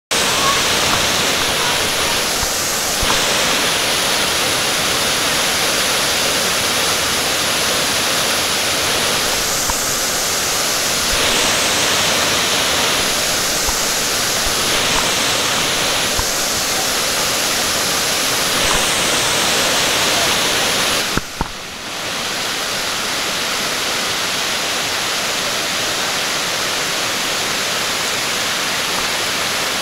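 Cascading waterfall on a creek, water rushing steadily. A brief drop about two-thirds of the way through, after which the rush runs a little quieter.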